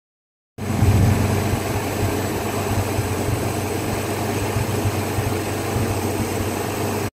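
Engine of a 1942 Clarktor 6 tow tractor running steadily, heard close up from the open engine bay. It cuts in abruptly about half a second in and is slightly louder for the first second.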